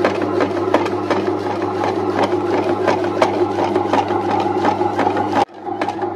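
Bread maker's kneading motor running steadily, its paddle turning a ball of atta dough in the pan, with frequent light knocks. The hum drops sharply about five and a half seconds in, then carries on more faintly.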